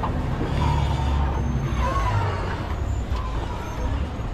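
Tourist river boat's engine running with a steady low rumble under a constant wash of noise.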